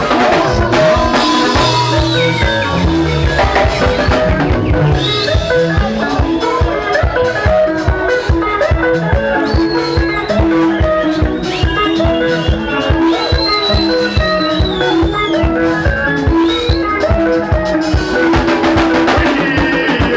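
Live Zimbabwean rumba band playing: electric guitar lines over bass and a steady, evenly spaced drum-kit beat.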